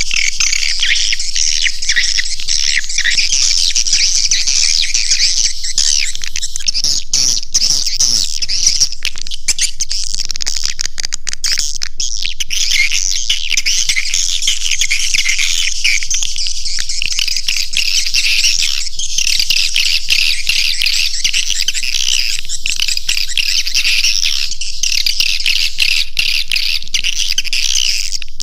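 Swiftlet caller sound: a dense, unbroken chorus of high, rapid swiftlet chirps and twitters. It is played to lure swiftlets into a swiftlet house.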